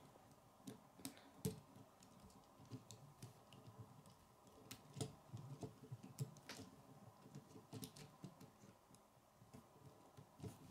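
Faint, irregular clicks and taps of plastic K'nex pieces as a hand presses on and adjusts a toy truck's frame and wheels.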